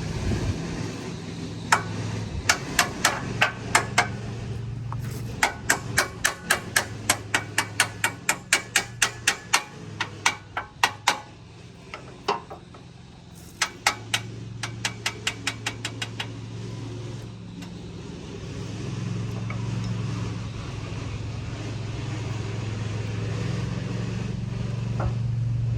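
Hammer blows on metal, in runs of quick strikes about three a second that stop after about sixteen seconds, over a steady low mechanical hum.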